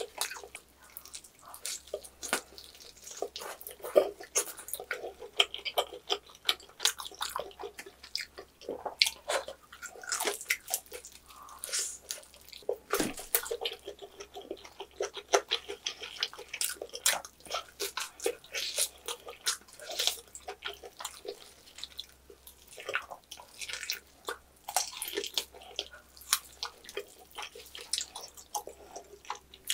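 Close-miked wet chewing and sticky mouth clicks from eating a roasted pork knuckle (schweinshaxe), irregular and continuous.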